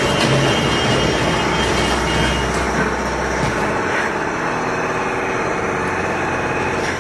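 A vehicle engine running, a dense steady noise with a low rumble that drops away about four seconds in.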